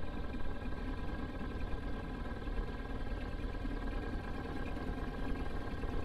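Small gasoline outboard motor running steadily at low trolling speed.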